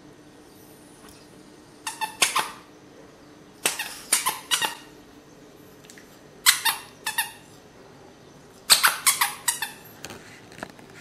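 A small dog chewing a squeaky plush bunny toy, setting off four quick clusters of high squeaks a couple of seconds apart.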